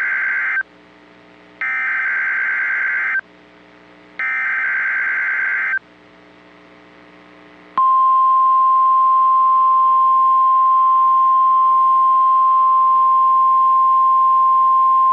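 NOAA Weather Radio emergency alert: the warbling SAME data header, ending one burst and sending two more about a second apart, each lasting about a second and a half. Then the steady 1050 Hz warning alarm tone comes on and holds. It announces a High Wind Warning.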